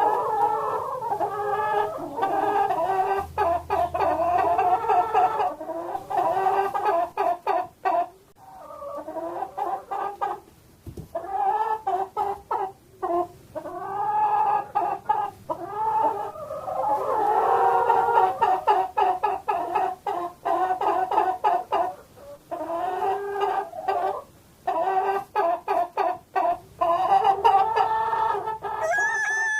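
Chickens clucking almost continuously, with many short calls following and overlapping one another and a few brief pauses.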